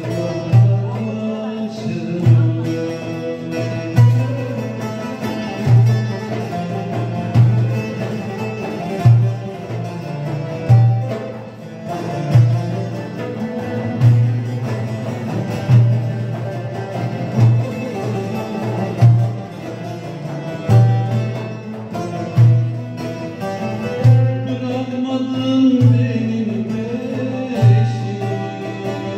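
Turkish folk music played on two bağlamas (long-necked saz lutes) with a frame drum and a darbuka, a deep drum beat falling a little under every two seconds.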